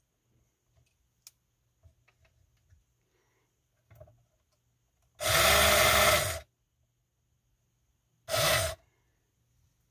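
Small battery-powered electric motor of a toy Evinrude outboard running in two short bursts, about a second and a quarter and then about half a second, as it is switched on and off by hand. Faint handling clicks come before them.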